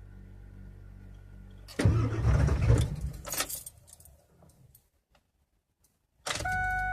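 1999 Ford 7.3 Power Stroke V8 turbo-diesel being cranked on a cold start. About two seconds in comes a loud, rough burst of engine noise that fades out over about two seconds without settling into a run: a hard start from bad glow plugs. Near the end, steady organ-like music tones begin.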